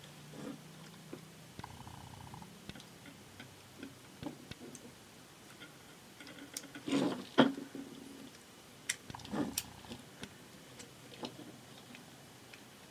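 Irregular small plastic clicks and taps as the gears and shaft of a 1985 Tomy animatronic bear's gearbox are handled and fitted together, with a louder pair of clicks about seven seconds in.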